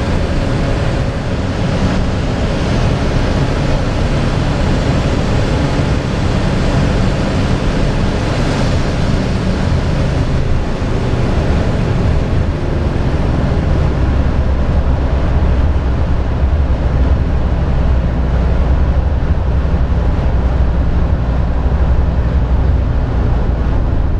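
Inside the cabin of a 1985 BMW 635CSi slowing down from about 215 km/h: heavy, steady wind and road noise over its straight-six engine, whose revs are falling. The hiss thins out as the car slows while a low rumble grows stronger in the second half.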